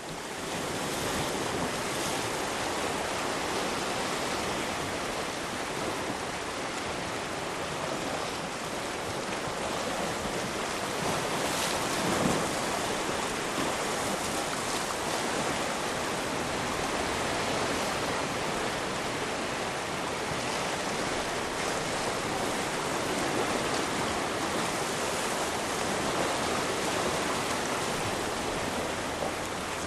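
Sea surf washing against a rocky shore: a steady hiss of waves, swelling a little louder about twelve seconds in.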